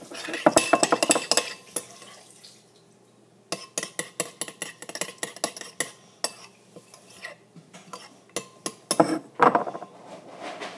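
A spoon stirring slime in a mixing bowl, clicking against the bowl in quick irregular runs. It stops for about a second and a half about two seconds in, then goes on, with a louder flurry of clinks near the end.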